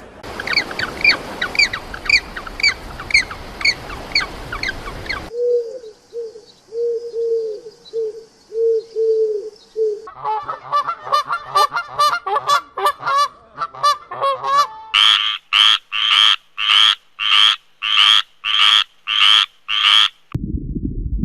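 A run of different animal calls in short clips cut one after another. First come repeated high chirps over a steady hiss. About five seconds in, a regular series of low calls follows, about two a second. From about ten seconds in there are rapid calls, then louder calls about two a second, before a cut to a low rumble near the end.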